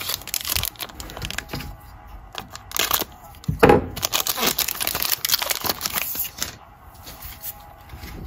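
Foil wrapper of a Panini Mosaic trading-card pack crinkling and tearing as it is ripped open by hand. A run of sharp crackles and rustles, busiest in the middle and quieter near the end.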